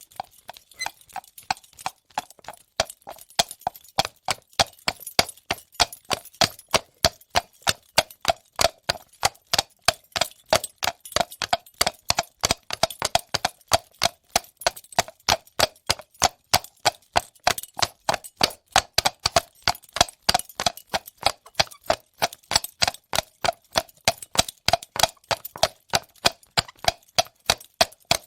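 Horse's hooves clip-clopping on a paved street at a steady, even pace, about three to four hoof strikes a second.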